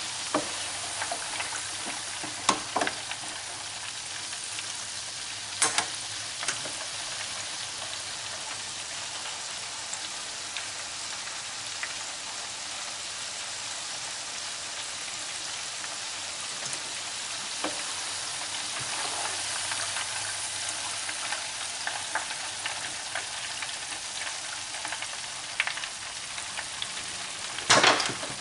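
Flour-coated shrimp deep-frying in an electric deep fryer: a steady hiss of bubbling oil, with a few sharp clicks and knocks, the loudest near the end.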